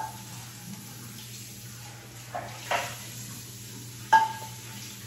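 Metal frying pan being washed and handled at a kitchen sink: two short washing noises about two and a half seconds in, then a sharp metal clank about four seconds in that rings briefly, over a steady low hum.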